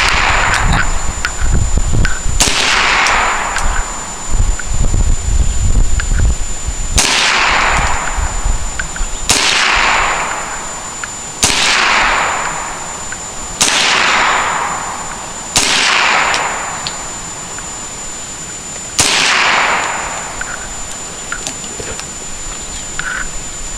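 AR-15 rifle fired in slow single shots, seven in all, about two seconds apart with a longer pause before the last. Each crack trails off in a long echo lasting a second or two.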